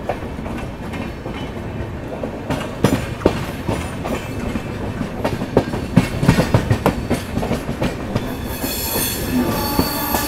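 Passenger train coaches rolling out of the station, with irregular clatter of wheels over rail joints and points, heard through an open coach door. About eight seconds in, a high, steady wheel squeal sets in, typical of wheel flanges rubbing the rail through points or a curve.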